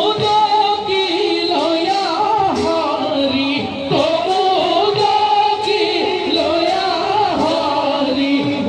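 Assamese bhaona music over a loudspeaker system: a voice sings a wavering, ornamented melody over instrumental accompaniment, with light percussion strikes through it.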